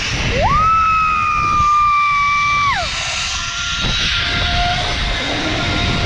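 Zip line trolley pulleys whining along the steel cable: a steady high whine rises in pitch as the rider takes off, holds for about two seconds, then drops away. A fainter, lower whine follows, over a low rush of air.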